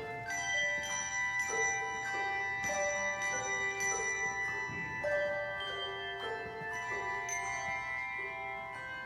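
Handbell choir playing a tune: bells rung one after another, each note ringing on while new ones start, so several notes sound together.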